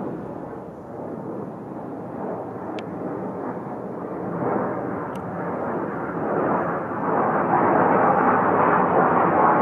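JAS 39 Gripen fighter's single Volvo RM12 afterburning turbofan in flight, a steady jet rumble that grows louder as the aircraft comes closer, loudest over the last few seconds.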